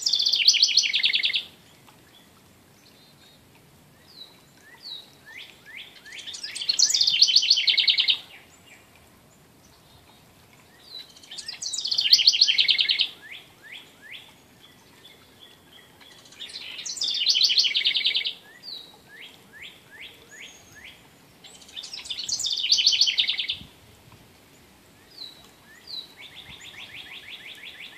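House wren singing: a fast trill of rapid high notes lasting about two seconds, repeated about every five seconds.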